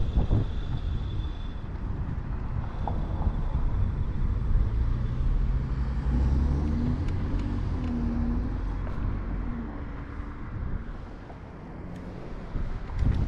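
Wind rushing over the microphone and road rumble from a Kaabo Mantis electric scooter riding along a city street. The noise eases off about eleven seconds in as the scooter slows for a turn.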